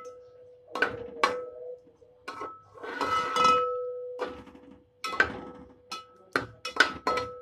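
Perforated steel skimmer knocking and scraping against a large aluminium pot while stirring sliced onions frying in ghee: a run of sharp clinks, coming faster near the end, with a longer scrape about three seconds in.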